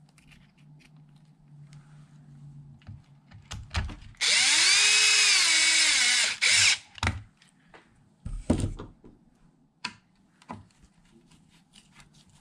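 Cordless drill-driver running for about two seconds, its whine rising as it spins up, holding, then falling as it slows before it stops. A few knocks and a low thud of tools and parts being handled follow, with light clicks around them.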